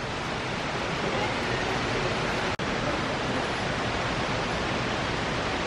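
Steady, even rushing noise with no speech; it drops out for an instant about two and a half seconds in.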